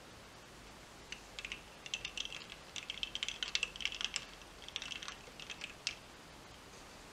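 A run of quick, irregular light clicks, starting about a second in and stopping about a second before the end.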